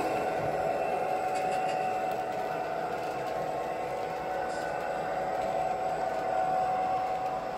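Model train's double-stack container cars rolling past on the track: a steady running noise of wheels on rail, with a continuous whine.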